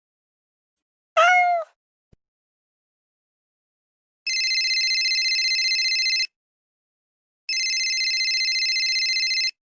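A short cat meow sound effect about a second in, then two telephone-style rings, each lasting about two seconds with a short pause between them.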